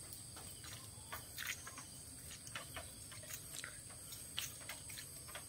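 Faint, steady high-pitched insect chirring, with irregular soft clicks and ticks scattered through it.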